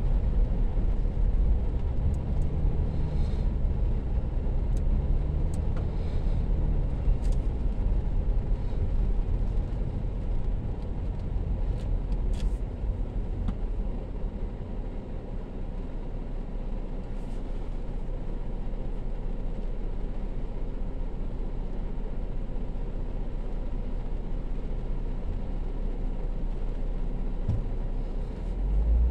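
Car heard from inside the cabin, its engine and tyres running on a wet road. It slows to a stop and idles steadily for the second half, then starts to pull away with a rise in engine rumble near the end.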